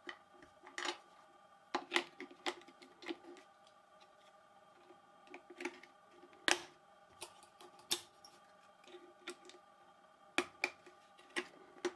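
Irregular small plastic clicks and taps as AA batteries are pushed into a handheld digital multimeter's battery compartment and the battery cover is fitted and pressed shut.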